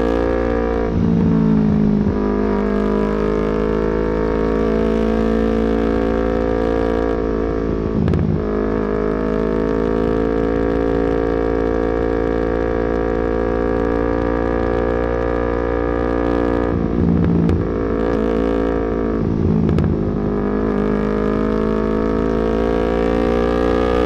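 Yamaha MT-25's 250 cc parallel-twin engine and exhaust running at a steady note under way, with a few brief breaks where the note drops and picks up again.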